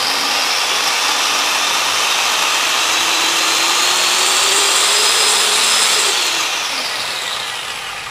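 Electric handheld marble cutter running free with no load, its motor whine slowly rising in pitch as the speed regulator is turned up. After about six seconds it falls in pitch and fades as the motor slows down.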